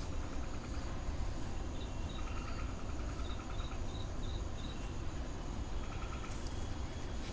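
Crickets and other night insects chirping in short pulsed trills, with a run of about five quick high chirps in the middle, over a steady low rumble.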